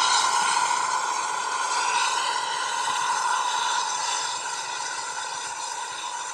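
Steam locomotive whistle held in one long steady blast, slowly fading as the train pulls away.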